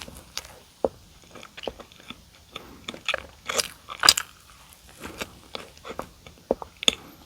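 A person chewing and biting donuts, a run of quick short mouth clicks, loudest about three to four seconds in.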